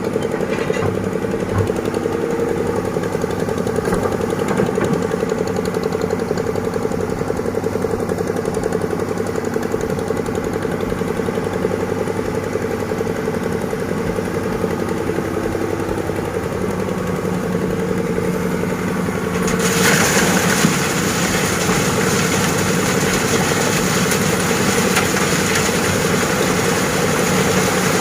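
Diesel engines of an excavator and a dump truck running steadily. About two-thirds of the way through, a broad steady hiss joins in and stays.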